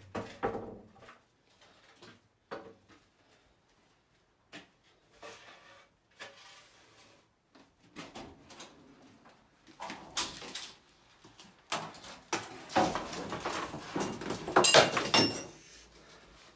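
Scattered knocks, bumps and clatter of objects being handled, with quiet gaps between them, getting busier and loudest a few seconds before the end.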